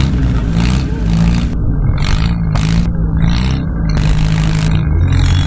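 An engine running, its pitch rising and falling as it is revved and eased off, settling lower near the end.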